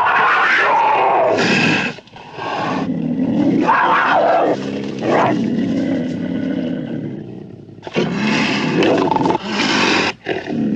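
Vintage sound-effect recording of a cougar giving a run of loud, harsh calls, broken by short pauses about two seconds in, near eight seconds and near ten seconds.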